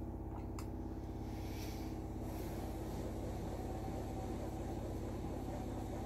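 Spinning wheel running, its flyer and bobbin turning fast: a steady mechanical hum with a fast, even pulse.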